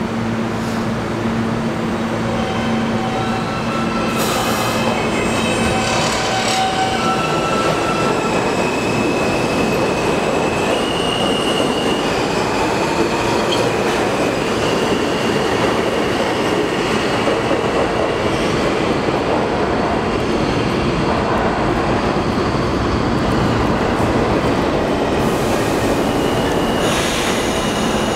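New York City subway train pulling out of an underground station. Stepped, rising electronic tones from its propulsion sound as it picks up speed, then a steady rumble of wheels on rail with wheel squeal as the cars pass.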